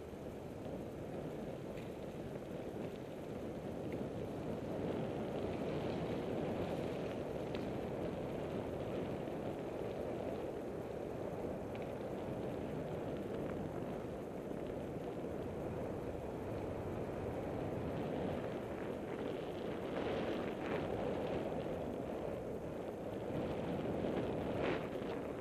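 Steady wind rumble on the microphone and tyre noise from a bicycle rolling along an asphalt path, with a few small rattles near the end.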